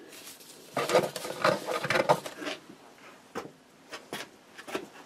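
Packaging being handled: a second or two of crinkling and rustling paper and cardboard from the monitor's box, then a few light taps and knocks.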